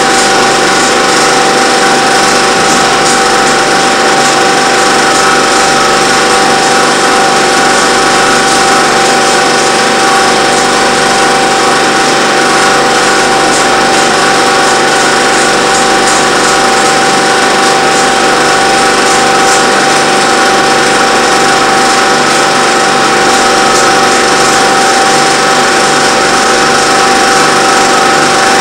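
Film projector running, a steady mechanical whir with a constant hum, picked up while old home-movie film is projected and re-filmed on video.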